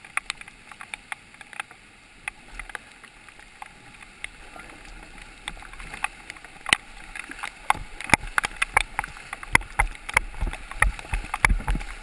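Sit-on-top kayak running a rocky riffle: water splashing and slapping against the plastic hull and paddle over the rush of moving water. The splashes come thicker and louder from about halfway through.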